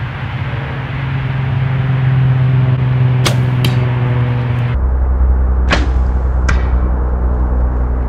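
A compound bow shot at a whitetail buck: a sharp crack of the string's release, then a second snap about a third of a second later as the arrow hits the deer. Two more sharp snaps follow a couple of seconds later, over a loud steady low drone that drops lower about a second after the shot.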